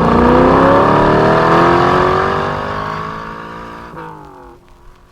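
1961 Corvette's fuel-injected 283 V8 accelerating hard, its note rising steadily in pitch, then fading away over the last couple of seconds until it is gone about four seconds in.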